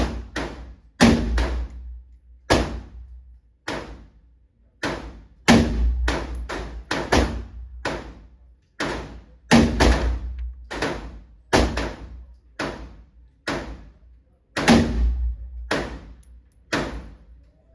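Firearm shooting, about twenty shots at an uneven pace of roughly one a second, sometimes quicker. Each is a sharp crack with a short echoing tail, and a few fainter shots fall in between.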